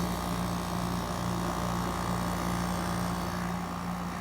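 Air-conditioning unit running, its compressor and fan giving a steady low hum.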